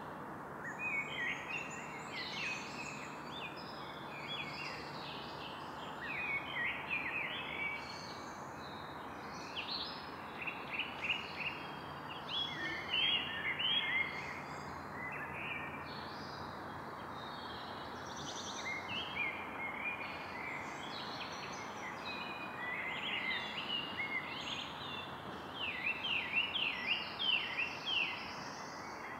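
Evening forest ambience: several birds singing and calling over a steady background hiss, with a quick run of trilled calls near the end.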